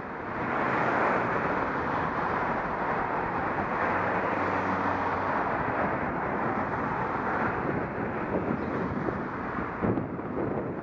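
Steady rush of wind and road noise on a cycling action camera's microphone while riding. A faint engine hum from a vehicle alongside comes in for a couple of seconds midway, and there is a short thump near the end.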